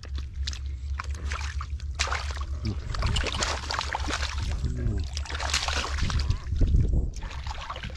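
Hands splashing and sloshing through shallow muddy water, with a catfish thrashing at the surface; irregular wet splashes, heaviest near the end, over a steady low rumble.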